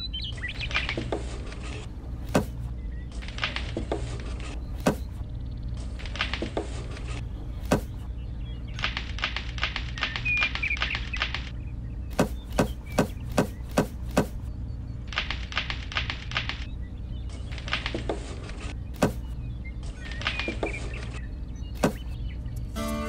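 Cherries and hands handling a plastic toy trailer and diorama: sharp clicks at irregular intervals, a quick run of clicks about halfway through as cherries drop into the plastic trailer, with stretches of rustling between them over a steady low hum.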